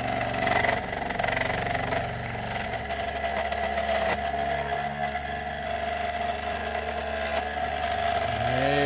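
3D-printed pulse motor running at speed, its red rotor spinning on a steel shaft over the drive coil and giving a steady mechanical whine with a buzz. The noise comes from somewhere in the motor that the owner has not yet tracked down. A brief swooping rise and fall in pitch comes near the end.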